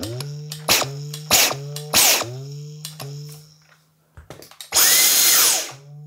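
Dyson V10 cordless vacuum's motor blipped on by the trigger: four brief bursts in the first two seconds, each trailing a falling whine as the rotor stops fast against its strong magnets, with a low steady buzz between them from the stopped rotor vibrating in the magnetic field. About five seconds in it runs for a second, its whine rising and then dropping quickly as it stops.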